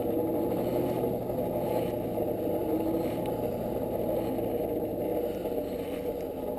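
Forge blower running steadily, blowing air into the fire to bring the work up to welding heat; a low, even rush of air with no change in pitch.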